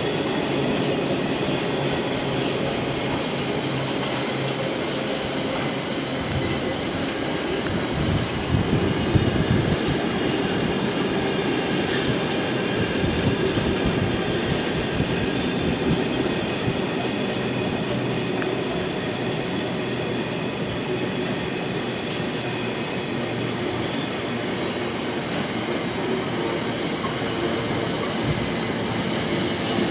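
Long intermodal freight train rolling past, a steady rumble and clatter of wagon wheels on the rails, with faint high wheel squeal.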